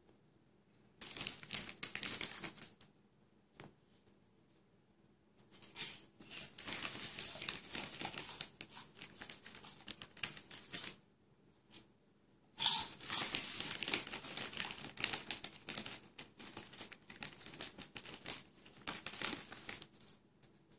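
Crinkly chip bag rustling and crackling in three long stretches, with quiet gaps between them, as a hand rummages in it.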